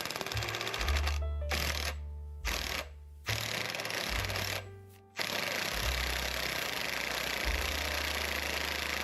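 Rapid ticking from the front running gear of a Nissan Note e-Power Nismo S at low speed, with a low rumble underneath and several brief drops in level. The owner suspects a worn drive shaft joint or front hub bearing.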